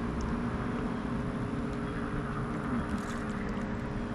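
Steady engine hum with a low rumble and hiss. Several steady tones hold an even pitch throughout, with no clear rise or fall.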